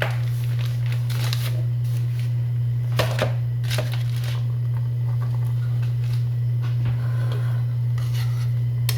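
A metal utensil scraping and clinking against a frying pan a few times, over a steady low hum.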